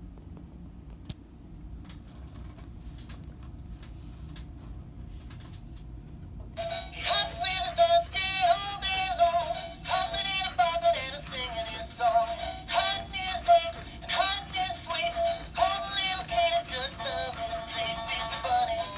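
Gemmy Hip Swinging Easter Bunny animatronic toy playing its tinny Easter song with a singing voice, starting about six and a half seconds in. Before that there is only a low hum and a few faint clicks.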